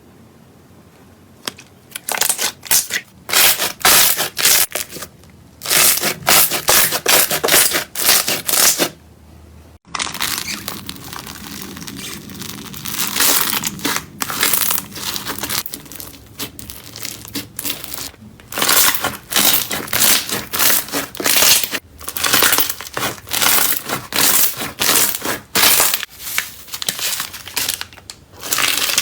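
Slime being squeezed and pressed, giving dense crackling and popping in quick clusters with short pauses between. About ten seconds in it switches abruptly to another stretch of steadier, near-continuous crackling.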